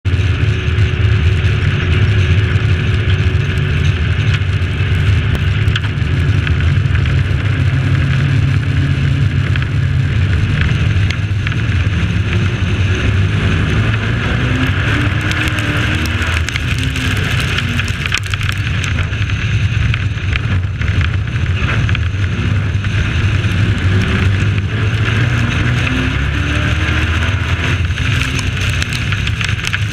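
Dirt-track racing pickup truck's engine running hard at racing speed, heard on board, a loud steady drone with wind and track noise over it.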